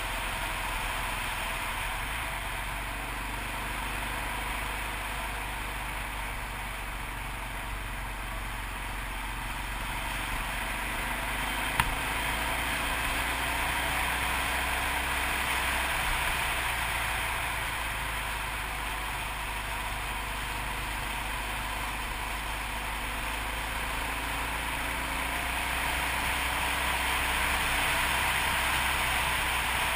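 Yamaha TT600RE's single-cylinder four-stroke engine running as the motorcycle rides along at a fairly steady pace, its pitch drifting gently up and down under a steady rush of wind noise. A single sharp tick about halfway through.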